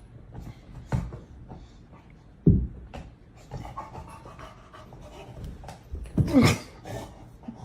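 Dog panting, broken by short rustles and knocks, with a loud thump about two and a half seconds in and a brief falling vocal sound about six seconds in.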